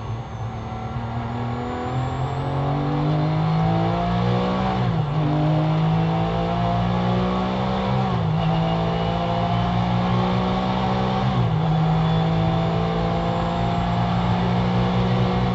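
Porsche GT3's flat-six engine accelerating hard out of a corner and down a straight, heard from inside the race car. The pitch climbs steadily and drops sharply at three upshifts about three seconds apart.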